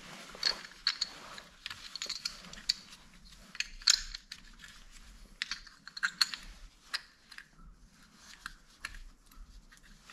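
Wheel-bolt caps being clicked back onto a car wheel's bolts and handled: a series of irregular light clicks and taps, the sharpest about four seconds in.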